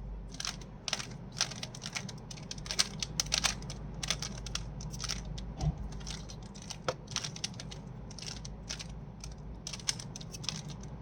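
Rubik's cube being turned by hand, its plastic layers clicking and snapping in quick irregular runs of short clicks.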